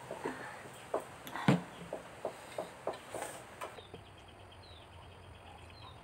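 A person gulping milk from a glass: a quick run of swallowing gulps, about three a second, the loudest about one and a half seconds in, stopping after about three and a half seconds.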